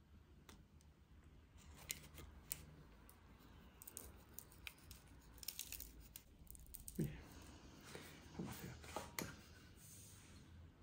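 Near silence with faint, scattered small clicks and soft taps of a spoon and glass bowl being handled while chocolate-dipped waffles are set out, a little busier about two-thirds of the way through.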